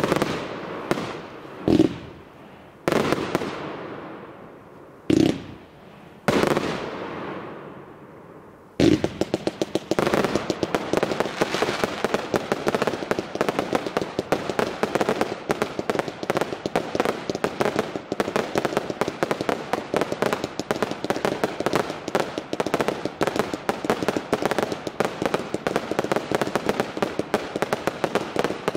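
Fireworks display: about six separate aerial bursts, each a loud bang with a long echoing tail, over the first nine seconds. Then, from about nine seconds in, a dense, continuous run of rapid bangs and crackles from a fast-firing barrage.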